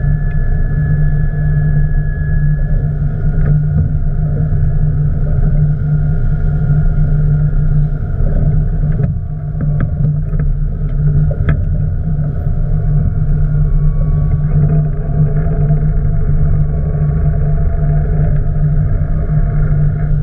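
Boat engine running steadily with a low hum, a few faint clicks sounding about halfway through.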